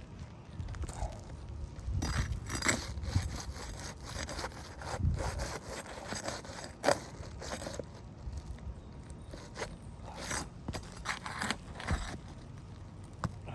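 Hand tools scraping and prying under asphalt roof shingles to free the nails of a damaged shingle, with irregular scrapes and scattered sharp clicks, one loud click about halfway through.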